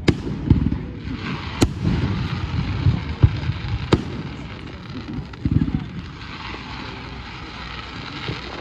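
Fireworks display: sharp bangs of shells bursting, one right at the start, one about one and a half seconds in and one about four seconds in, with a smaller one between them and low rumbling booms. A fainter hiss runs under the bangs and grows again in the last few seconds.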